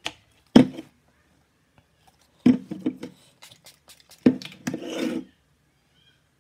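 Hand-held pump spray bottle of face mist sprayed at the face several times, as short sharp puffs with a longer hiss near the end.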